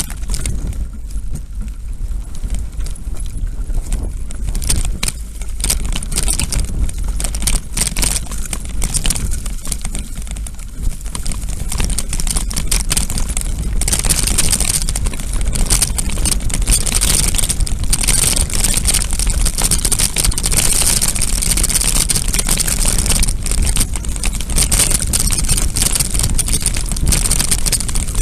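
Mountain bike riding over a rough stony dirt track, heard from the rider's own camera: a steady rumble of wind buffeting the microphone with constant rattling and knocking from the bike and camera mount. From about halfway through a louder hiss joins in.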